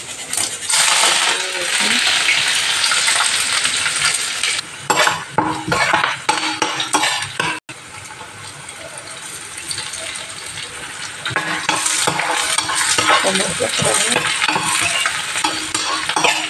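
Chopped onion, green chillies, garlic and curry leaves sizzling in hot oil with cumin in a stainless steel frying pan. The sizzle comes up loud about a second in as they hit the oil. A spatula scrapes and clatters against the pan as they are stirred.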